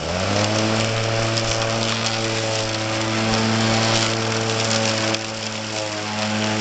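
Robotic lawn mower's motor rising in pitch as it spins up at the start, then running with a steady hum and a rushing hiss above it, dipping briefly about five seconds in.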